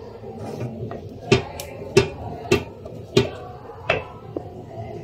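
Silicone spatula knocking and scraping against the side of a metal pot as thickening kheer is stirred. There are five sharp knocks at a steady stirring rhythm, a little over half a second apart, over a steady low background hum.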